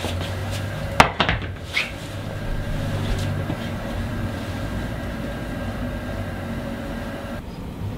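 Handling noise in a small room: a sharp wooden knock about a second in, then a few softer knocks and rustles as a wooden bowl is put on the floor and a stool is sat on. A steady low hum runs underneath.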